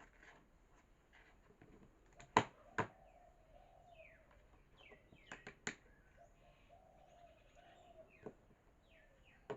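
Faint birds chirping, with a low wavering call that comes and goes, and a few sharp clicks: two about two and a half seconds in and three more around five and a half seconds.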